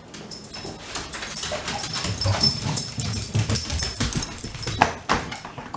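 A dog right at the microphone, moving about and making small close-up noises, with irregular low thumps of movement.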